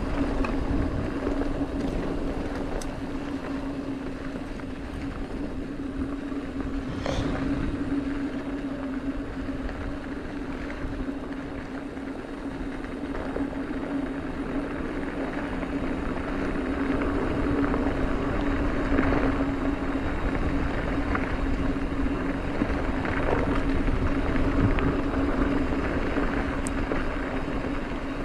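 Mountain bike rolling fast down a packed dirt fire road: a steady hum from the spinning wheels over a rush of wind on the microphone, with a few sharp clicks and rattles from the bike.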